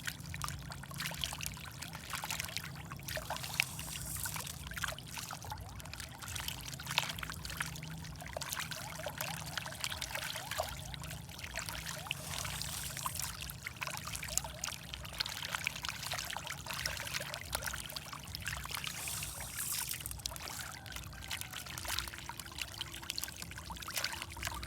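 Many fish feeding at the water surface: irregular small splashes and slurps over a water trickle, with a steady low hum underneath.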